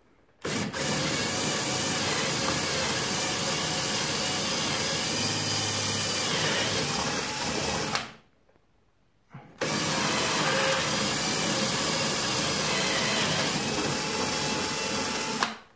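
Parkside PBSA 12 D3 12 V cordless drill running steadily as a twist bit bores into a wooden board. It runs in two stretches of about seven and six seconds, with a silent pause of about a second and a half between them.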